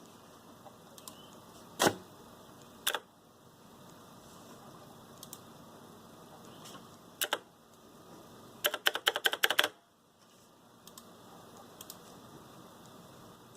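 Keys of a Razer BlackWidow Ultimate mechanical gaming keyboard being pressed. A few separate clacks come first, then a quick run of about ten presses, with faint ticks in between; the keys are very noisy.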